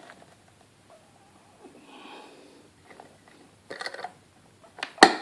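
Light metallic clicks and then one sharp metal clack near the end as the just-picked Brinks padlock and lock-picking tools are handled, with a soft breath in between.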